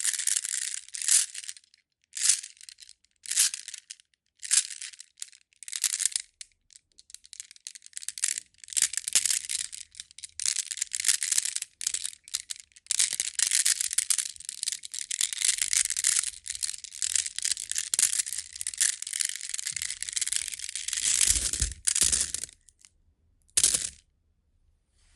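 Pietersite stones rattled and rubbed together, clattering and grinding in bursts. First come short shakes about a second apart, then longer runs of continuous clatter, then one last short shake near the end.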